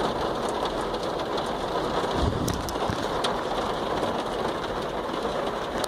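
Heavy rain drumming steadily on a van's roof and windows, heard from inside the vehicle, with a brief low rumble about two seconds in.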